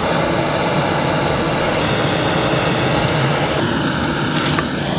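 Handheld butane gas torch burning with a steady roaring hiss, its flame held into the firewood of a rocket stove to light it.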